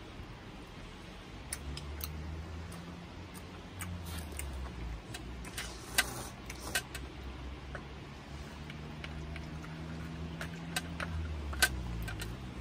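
A folding knife clicking and scraping against a metal tray and lobster shell as a cooked lobster is cut, with sharp metallic clicks now and then, the loudest about halfway through and near the end. A steady low engine hum runs underneath, dipping in pitch near the end.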